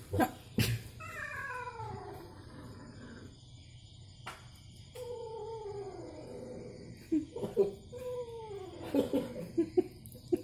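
Domestic cat yowling angrily: several long, drawn-out calls that fall in pitch, with shorter, sharper cries near the end. A couple of sharp knocks come at the start.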